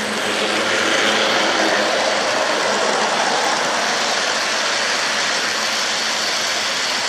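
Large-scale (G-gauge) garden model train passing close by: a steady rolling noise from its wheels on the track, swelling as the diesel locomotive comes past, loudest about a second in, then holding level as the freight cars roll by.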